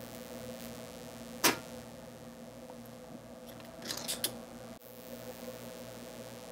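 Tools working a large capacitor loose from a circuit board: one sharp click about a second and a half in and a few lighter clicks around four seconds, over a steady low hum.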